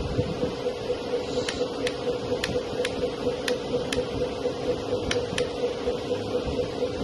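Kabolite K3365 RC 8x8 dump truck idling with the engine running but the truck standing: a steady hum that pulses in an even rhythm, with a few sharp ticks scattered over it.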